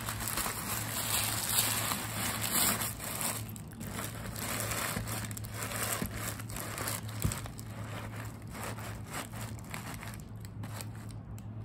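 Crumpled brown paper and tissue paper rustling and crinkling as they are stuffed into a leather handbag, densest in the first three seconds, then lighter, intermittent rustles.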